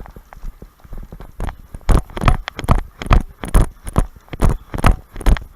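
Footsteps at a quick, even pace, a little over two steps a second, loud and thudding from about two seconds in, after a few fainter steps.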